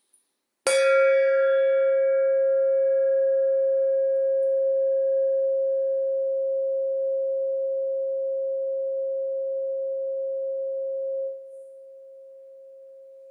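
A tuned metal frequency pipe (chime tube) is struck once, about a second in. It rings a single clear tone with brief higher shimmering overtones and decays slowly. About eleven seconds in the level drops sharply and the remaining tone fades away.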